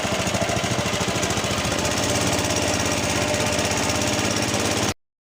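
Honda GX120 single-cylinder four-stroke engine of a longtail boat running hard and steady, pushing the boat against a fast flood current, with a hiss of rushing water behind it. The sound cuts off abruptly about five seconds in.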